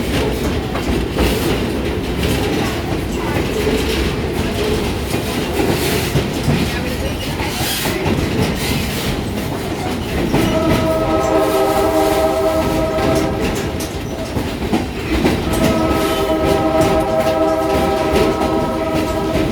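Passenger train running with a steady rumble and clatter of its cars. About ten seconds in the locomotive's multi-note horn sounds one long blast of about four seconds, then a second long blast from about fifteen seconds in.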